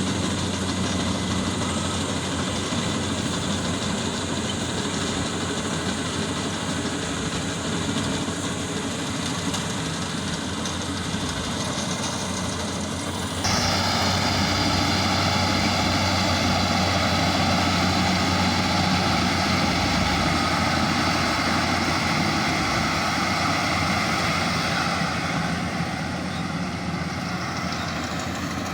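Combine harvester running steadily with a low engine drone. About halfway through the sound changes abruptly, becoming louder, with several steady higher whining tones added.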